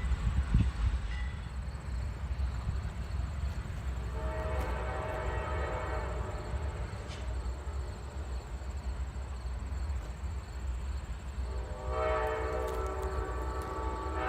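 Amtrak locomotive horn sounding two long blasts of about three seconds each, the second a little louder, over a steady low rumble.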